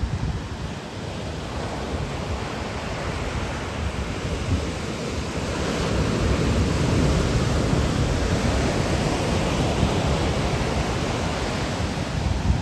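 Ocean surf washing on the shore, swelling louder about six seconds in as a wave breaks, with wind rumbling on the microphone.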